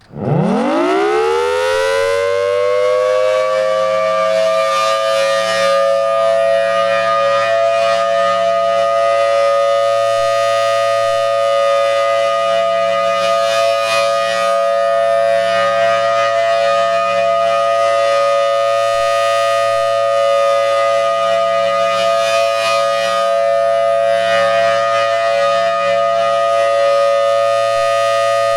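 Federal Signal Thunderbolt 1000T dual-tone warning siren winding up, its pitch rising fast in the first two seconds. It then holds a loud steady two-tone chord, the steady Alert signal of a routine test. The sound swells about every eight to nine seconds as the rotating horn sweeps past.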